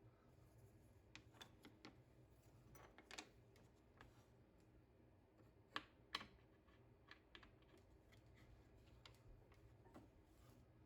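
Faint, scattered light clicks and taps over a low steady hum, with two sharper clicks close together just before the middle.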